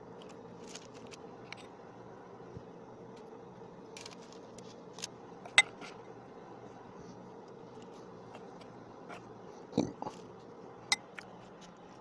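Spoon scooping cookie dough and dropping it onto a parchment-lined metal baking tray, with scattered light clicks and taps of the spoon against the metal bowl and tray: a sharp click about five and a half seconds in, a dull thump near ten seconds and another click just after. A steady low hum underneath.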